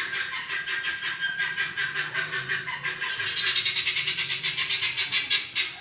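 Steady, fast, pulsing chatter of the animals and birds kept at the house, about ten pulses a second; it grows louder about three seconds in. The speaker calls it too much noise.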